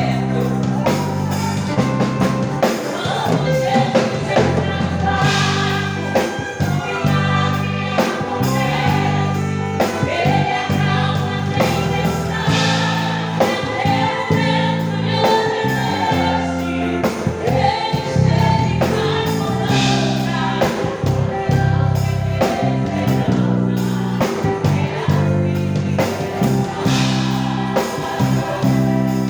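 A group of voices singing a gospel hymn over a live band, with a steady bass line and regular percussion.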